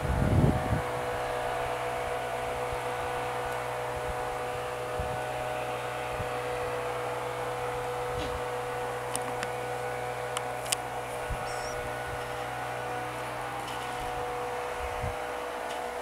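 A steady droning hum that holds at one pitch throughout, with a low thump about half a second in and a few light knocks and clicks.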